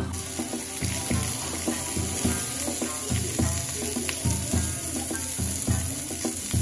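Meat and vegetables sizzling on a hot dome-shaped jingisukan grill, a steady hiss, over background music with a steady beat.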